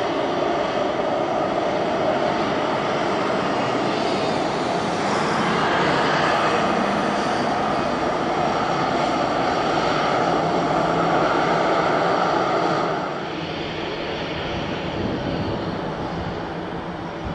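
Airbus A320-214's CFM56 jet engines running at taxi power as the airliner rolls along the runway: a steady jet roar with a faint whine, which grows quieter about thirteen seconds in.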